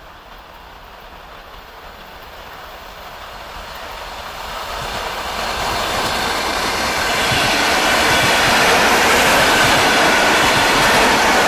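ED4M DC electric multiple unit approaching and passing. Its wheel-and-rail rolling noise grows steadily louder over about eight seconds, then holds steady as the cars go by.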